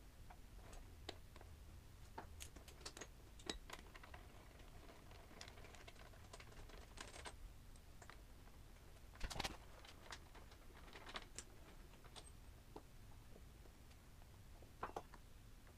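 Faint, irregular light clicks and taps of hand tools and small metal parts as the motorcycle's front brake calipers are unbolted, with a slightly louder knock about nine seconds in.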